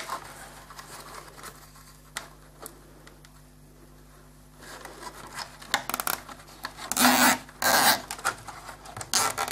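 Small nylon zip ties being threaded through holes in a thin plastic RC car body: light rubbing and clicking of plastic on plastic, with two louder short rasps near the end.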